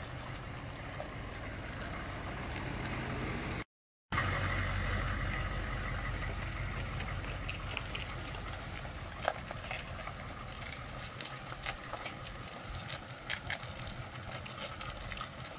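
Pickup truck engine running with a steady low rumble, which fades away after about eleven seconds. The sound drops out completely for a moment about four seconds in.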